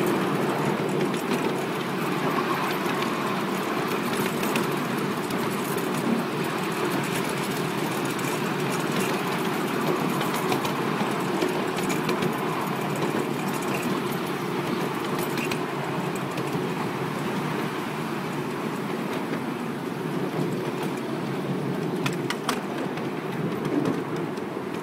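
Miniature ride-on railway train running along its track: a steady rumble of the wheels and locomotive, with a few sharp clicks a couple of seconds before the end.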